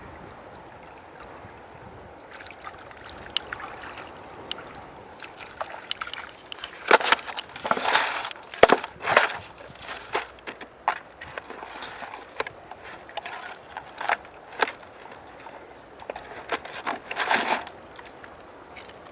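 Irregular sharp knocks and short splashy bursts over a steady hiss of running river water, loudest in two clusters in the middle and near the end.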